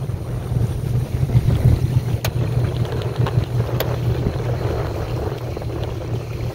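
Low steady rumble of a small motorboat out on a lake, with wind on the microphone. Two sharp clicks, about a second and a half apart, come a little after two seconds and near four seconds in.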